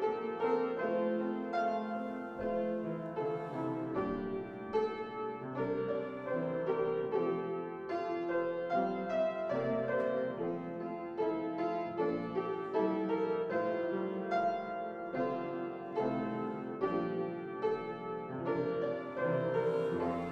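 Piano music, notes struck one after another without a break.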